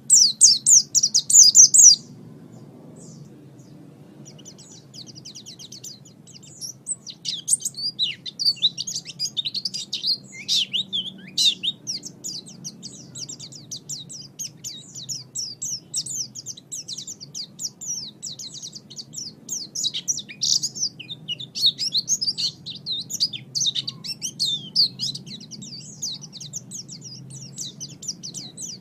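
Songbird chirping and twittering in fast, high-pitched runs: a loud burst at the start, a short lull, then near-continuous chatter from about six seconds in. A faint low hum runs underneath.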